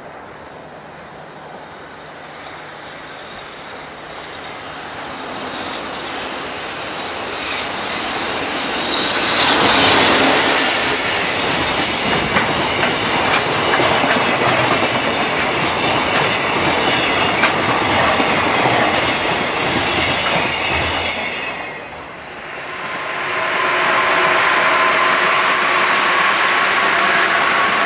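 An electric locomotive hauling a long container freight train approaches, growing louder, and passes with a fast run of wheel clicks over the rail joints. The noise drops about 22 seconds in as the last wagon goes by, then an electric commuter train runs past with a steady motor whine.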